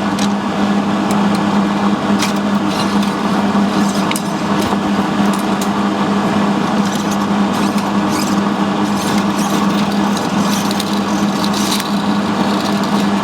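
A steady machine hum with a strong low tone, under scattered light clicks and metallic rattles from handling the welder's parts and wire.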